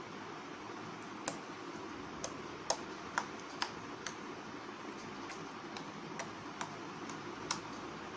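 A series of short, sharp clicks at irregular intervals, roughly one to two a second, over a steady hiss.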